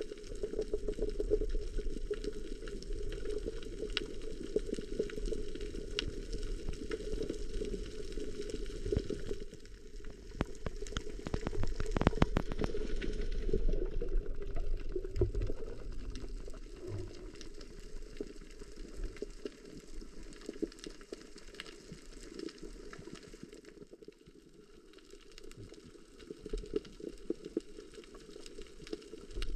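Muffled underwater sound heard through a submerged camera: a steady low churning of water, with a cluster of crackling clicks about ten to thirteen seconds in.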